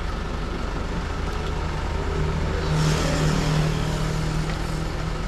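A motor vehicle engine running steadily, with a vehicle passing on the road, loudest about three seconds in.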